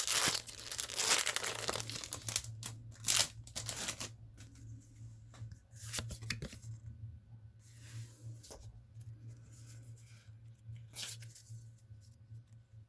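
Foil booster pack wrapper being torn open and crinkled, loudest over the first two seconds, followed by scattered short rustles and clicks as the cards are handled.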